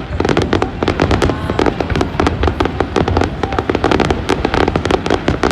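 Fireworks barrage: rapid, overlapping bangs and crackles, several per second, with no break.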